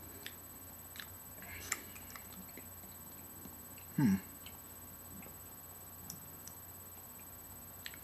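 Faint mouth sounds of someone working a spoonful of dry ground cinnamon around the mouth: scattered small clicks and smacks. One short, louder low sound with a falling pitch about four seconds in.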